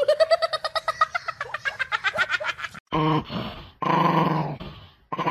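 A dog vocalizing: a rapid run of short, high yips for nearly three seconds, then two longer, lower drawn-out sounds.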